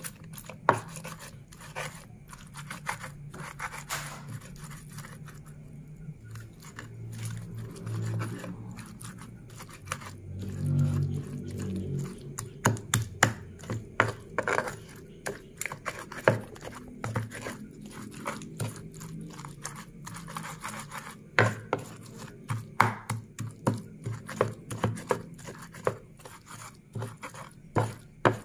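Cobek mortar and ulekan pestle grinding a wet sambal of chilies, tomatoes, shallots and shrimp paste: quick, irregular knocks and scrapes of the pestle against the mortar, with squishing of the crushed mash.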